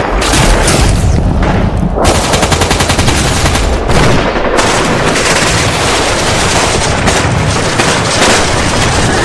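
Continuous battle gunfire: machine-gun fire and scattered shots mixed with booms, with a fast, even run of shots from about two to four and a half seconds in.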